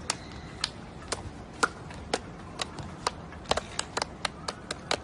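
A series of sharp taps, a few spaced out at first and then coming faster, about five a second, in the second half.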